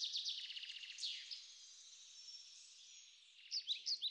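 Songbird singing: a fast trill of rapidly repeated high notes, then a quieter, steady high warble, with a few sharp chirps near the end.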